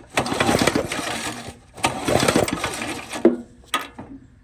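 Recoil pull-starter of a small engine yanked twice, each pull spinning the engine over for about a second without it firing, because the spark plug is out of the cylinder and grounded for a spark test. A couple of short clicks follow near the end.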